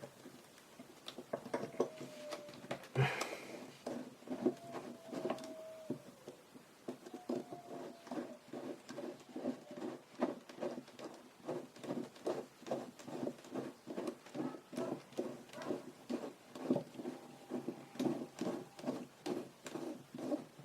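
Small repeated scraping clicks of a lens repair tool working the threaded black front ring of a Pentax-M 28mm f/2.8 lens loose, counterclockwise. There are a few faint squeaks in the first third, then an even run of short strokes at about two or three a second.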